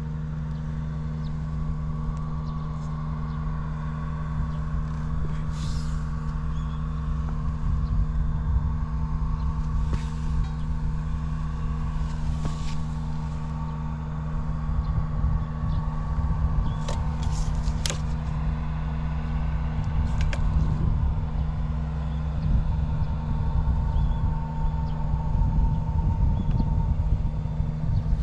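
Honda Ape 50's single-cylinder four-stroke engine, bored up with a Takegawa kit and fitted with a short exhaust pipe, idling steadily. The idle is free of abnormal noises, and a few brief clicks sound now and then.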